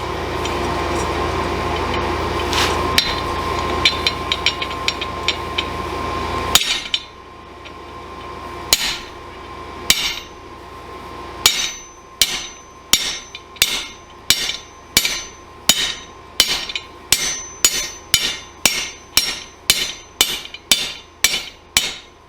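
Forging hammer blows on a hot wrought-iron railroad spike: a few single blows, then steady hammering at just under two blows a second, each with a short metallic ring. Before that, a steady hum with light taps stops suddenly about six and a half seconds in.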